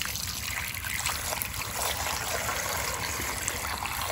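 A steady stream of water pouring into a stainless steel bowl of frozen eels, splashing onto the eels and the pooling water to melt their coating of ice.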